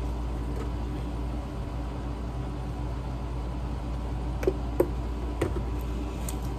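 A steady low mechanical hum runs throughout. Over it, about four and a half seconds in, two light knocks and a faint click come from a plastic bowl and utensil as coleslaw is stirred and dressing is poured in.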